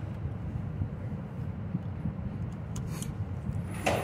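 Steady low rumble, with one sharp knock near the end.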